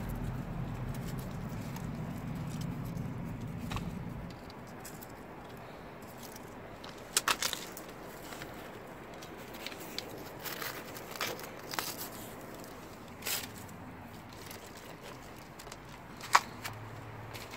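Handling sounds of fallen chili peppers being picked up and pots being moved: scattered sharp clicks and light taps over soft rustling. A steady low rumble runs for the first four seconds and then stops.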